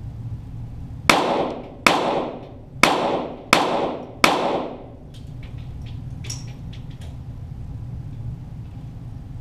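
.22 Walther GSP target pistol shots, five in about three seconds at an uneven pace, each followed by a long echo.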